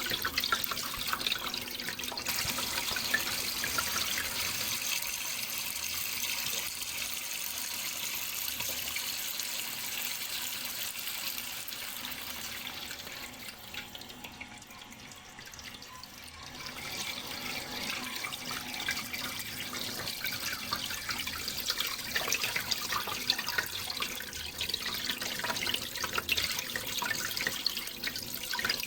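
Water running and splashing steadily with a fine crackle of drops; it grows quieter for a few seconds about halfway through, then comes back up.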